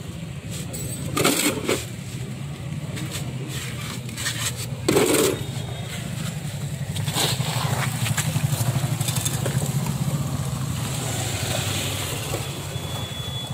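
Scrapes and knocks of a scooter's steel front-fork steering tube and greased ball-bearing race being handled and fitted, a few seconds apart, over a steady low mechanical hum.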